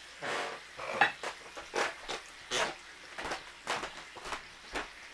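Bacon frying in a cast iron skillet on a wood stove: a faint sizzle with irregular crackles and pops of spitting fat, about one or two a second.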